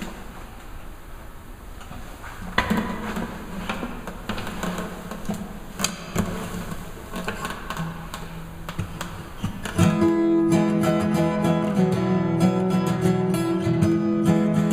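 Acoustic guitar playing a song intro. It starts about two and a half seconds in with separate plucked notes and chords, then turns to fuller, louder strumming about ten seconds in.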